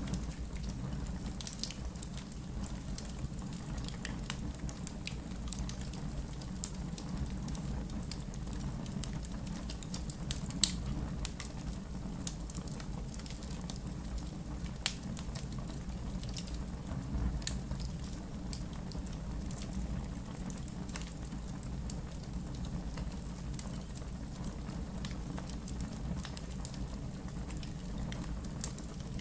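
Wood fire burning in a fireplace: a steady low rumble of flames with scattered sharp crackles and pops, one louder pop about ten seconds in.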